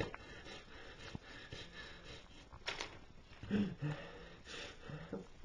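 Faint breathing from a young man in opioid withdrawal, with a few short, low moans about midway and near the end.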